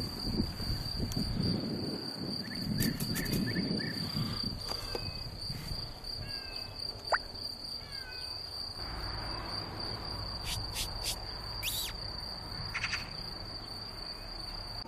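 Outdoor ambience with a steady high-pitched insect buzz throughout and a few short descending bird chirps in the middle. There is a low rumble in the first few seconds, and scattered light clicks.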